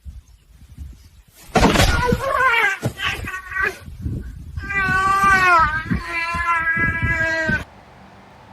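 A cat yowling twice: a shorter wavering call, then a long drawn-out one that cuts off suddenly.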